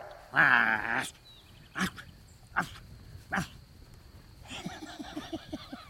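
Great Pyrenees puppies yelping and whining as they play. There is a loud squeal just after the start, then three short yips about a second apart, then a run of softer, quick little noises near the end.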